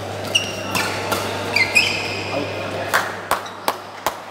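Badminton rally: sharp racket strikes on the shuttlecock and short high squeaks of rubber court shoes on the floor, one squeak sliding upward, ringing in a large hall. From about three seconds in, a regular run of light, sharp taps, two or three a second.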